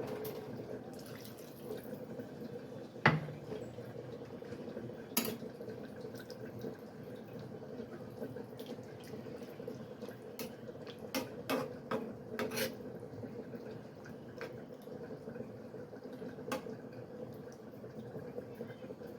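Cooking pot and metal utensils clinking and knocking a dozen or so times, the loudest knock about three seconds in and a quick run of clinks about two thirds of the way through, over a steady low hum.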